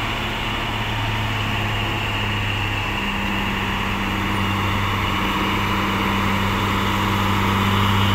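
Truck engine running as a tractor-trailer with a loaded flatbed moves slowly past. It is a steady low drone that grows gradually louder as the truck comes closer.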